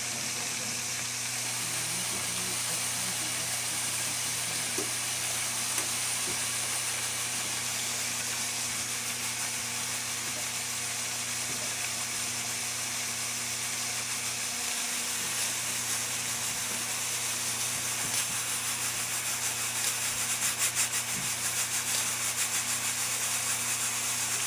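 Aluminium stovetop pressure cooker at pressure, hissing steadily as steam vents. Near the end the hiss breaks into a rapid flutter.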